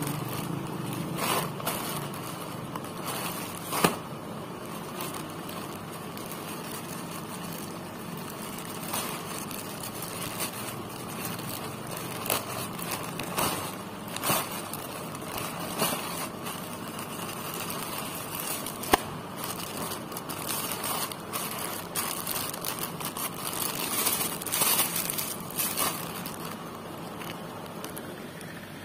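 Plastic courier mailer bag and clear plastic wrapping crinkling and rustling as a parcel is opened by hand, with two sharp clicks along the way.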